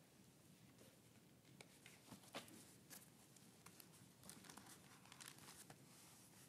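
Near silence: room tone with faint page rustling and small handling clicks, starting about a second and a half in.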